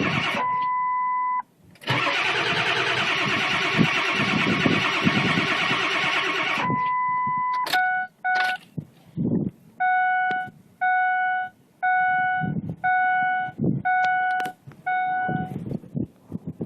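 Ford 7.3 Powerstroke diesel being cranked by its starter for about five seconds without catching, a cold no-start. The cranking cuts off suddenly and is followed by a steady beep, then the truck's chime sounding six times about once a second.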